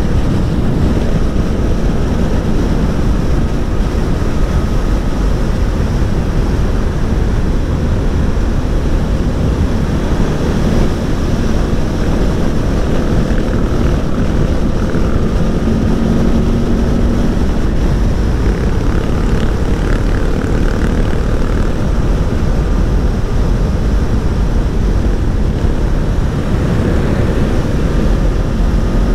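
Heavy wind rushing over the microphone at riding speed, with the Aprilia Tuono V4 1100's V4 engine running steadily under it as a faint drone.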